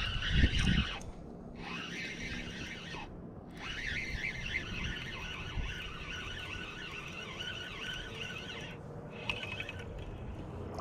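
Spinning reel being cranked as a hooked bass is reeled in: a steady high-pitched whirring squeal that breaks off briefly three times.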